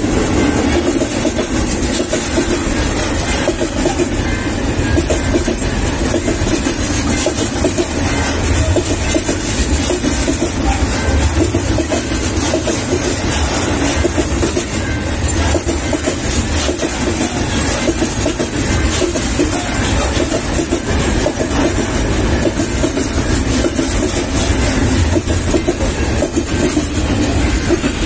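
Freight train wagons rolling past at close range: a steady, loud rumble of steel wheels on rail with clickety-clack over the rail joints.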